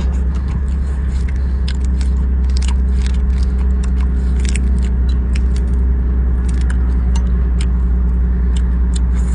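Mantis shrimp shell cracking and crackling as it is peeled by hand, many small irregular clicks. Under it runs a loud, steady low engine hum.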